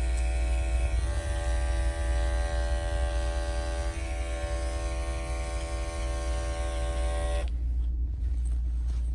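Electric dog-grooming clippers running steadily while trimming paw pads, then switched off about seven and a half seconds in. A steady low hum carries on underneath throughout.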